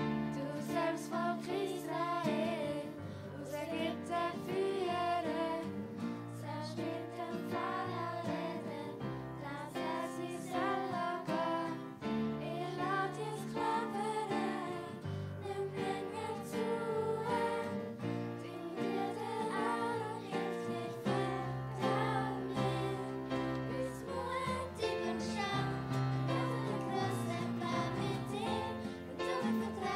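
A children's worship song sung in Swiss German: voices singing a melody over instrumental accompaniment with a steady bass.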